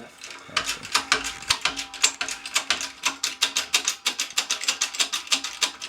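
Rapid, even clicking from the tool pressing the old bushing out of a front control arm, about six clicks a second, stopping suddenly at the end.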